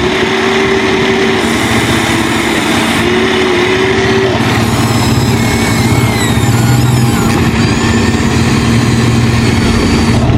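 Radio-controlled excavator and truck models running: a steady motor hum with a constant tone, and short rising and falling whines from about five to seven seconds in.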